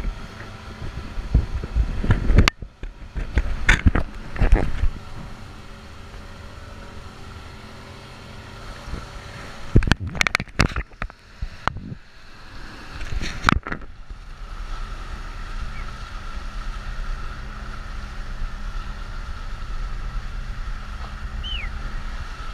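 Dive boat's motor running steadily under way, with rushing water and wind from the wake. Loud knocks break in several times in the first few seconds and again about halfway through.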